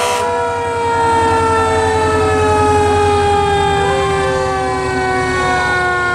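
Fire truck sirens sounding together in a long wail that slowly falls in pitch, several tones at once, over the low rumble of the trucks' engines.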